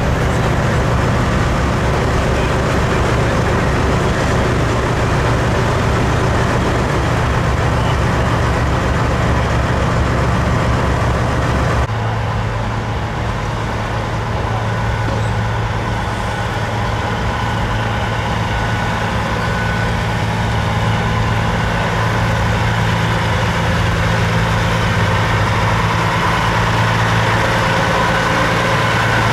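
Diesel semi-truck engines running steadily at low revs, idling and rolling slowly. About twelve seconds in the engine sound changes abruptly, to an orange Kenworth W900 pulling in with a trailer.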